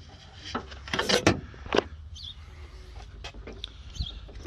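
Scattered clicks and light knocks of plastic and metal parts being worked inside a pickup's door: the exterior door handle's linkage rod being pushed into its plastic clip and the locking tab pushed over it.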